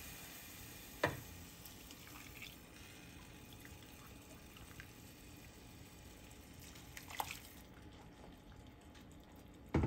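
Boiling water being poured from a kettle through a metal measuring cup into a pot of toasted basmati rice, a faint steady splashing that stops about three-quarters of the way through. Two light knocks, one about a second in and one later on.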